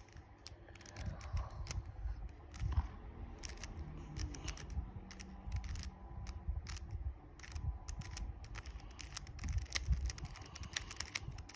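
A 3x3 Rubik's Cube being turned by hand through an algorithm: its plastic layers make many quick, irregular clicks over a low handling rumble.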